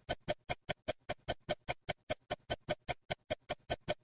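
Clock ticking sound effect, sped up: short, evenly spaced ticks, about five a second, marking time rushing by.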